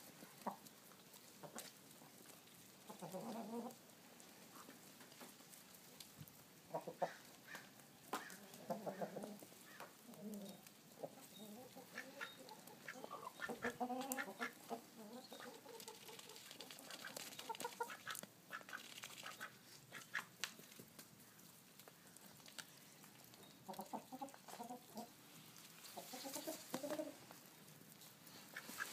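Backyard chickens clucking and ducks quacking in short, scattered bouts as the flock feeds, with a few short clicks between calls.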